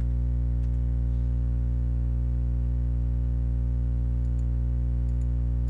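Steady electrical mains hum, a low buzz with many overtones at an unchanging level. A few faint computer-keyboard key clicks come about four to five seconds in.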